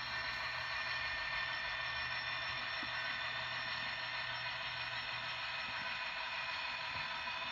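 Model train locomotive running on the layout track: a steady electric hiss with a low motor hum that fades out about six seconds in.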